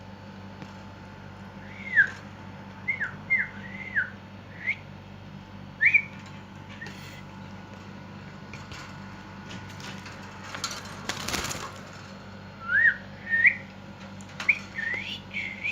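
Lovebirds chirping: short single chirps that sweep quickly in pitch, scattered through, with a brief rustle about eleven seconds in, over a steady low hum.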